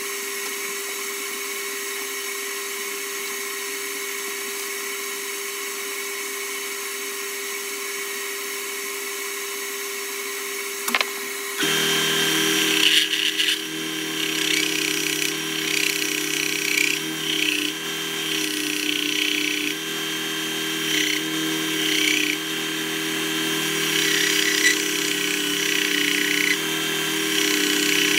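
Clarke Woodworker bench belt-and-disc sander running with a steady hum, unloaded at first. About twelve seconds in, a small wooden board is pressed edge-down onto the moving belt, and the sound turns louder and uneven as the wood is sanded.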